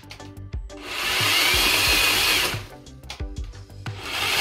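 Cordless electric chainsaw running in a short burst of under two seconds, its motor whining, then cutting out, with clicks and rattles in the pause; a second burst starts near the end. The chain keeps stopping, which the owner puts down to the saw's automatic stop, with the battery not fully charged.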